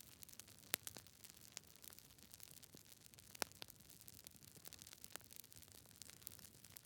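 Fire crackling: irregular sharp pops and snaps over a faint steady hiss, the loudest pop about three and a half seconds in.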